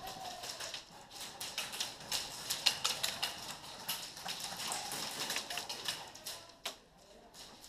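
Airsoft gunfire in an indoor field: a rapid, irregular clicking and tapping of guns firing and BBs striking plywood walls, thinning out near the end.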